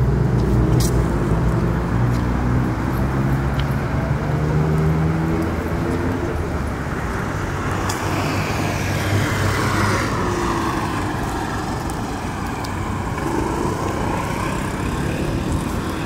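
Road traffic: a motor vehicle's engine hums steadily for the first several seconds, then fades into the rushing, sweeping sound of a vehicle going by.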